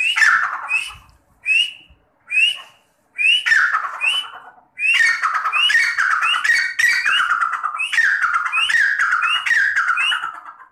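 Partridge (teetar) calling in a repeated series: each call is a short upward flick followed by a falling slur. A few spaced calls come first, then an unbroken run of about two calls a second from about five seconds in.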